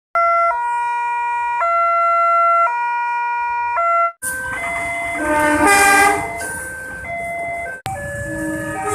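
Railway level-crossing electronic warning alarm: a two-tone signal switching pitch about once a second. After a cut about four seconds in, the alarm's stepping tones continue over traffic noise.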